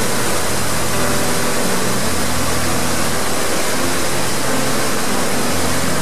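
Mountain waterfall pouring through a narrow rock channel: a steady, loud rush of water.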